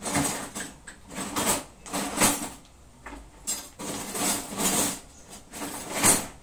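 Metal kitchen utensils scraping and knocking in about ten short, irregular strokes, as a spoon is worked against a pan or other kitchenware while vinegar is measured out.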